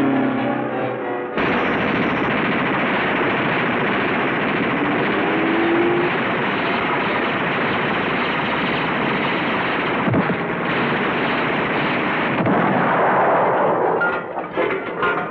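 Cartoon sound effect of rapid machine-gun fire: one long, unbroken rattle that starts abruptly about a second and a half in and stops about twelve seconds in, with music beneath it. A few separate knocks and crashes follow near the end.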